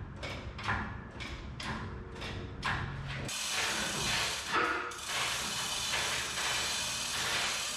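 Mechanical ratcheting: sharp clicking strokes about twice a second, then from about three seconds in a continuous harsh rattle that runs on until near the end.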